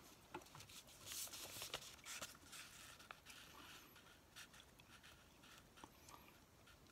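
Faint rustling and scraping of a sheet of paper being folded and creased by hand against a table, strongest about a second in, then fading to scattered soft ticks.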